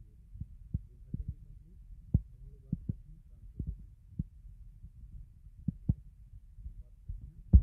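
Soft, irregular low taps and knocks from tapping and handling a tablet while picking drawing tools, over a faint low hum.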